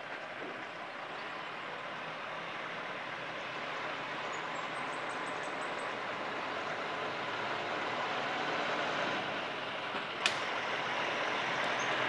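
Semi-truck hauling a shipping container approaching, its diesel engine and tyre noise growing steadily louder as it nears. A single sharp click about ten seconds in.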